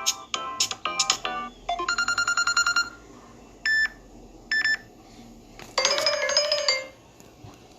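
Samsung Galaxy J7 Neo ringtones previewed one after another, each cut short. The end of a melodic tune gives way about two seconds in to a rapid electronic pulsing, then two short chimes, then a warbling tone near the end.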